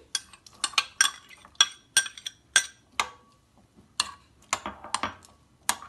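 A spoon clinking against a glass bowl while stirring beaten egg. It makes a string of sharp, ringing clinks, irregular at two or three a second, with a short pause a little past halfway.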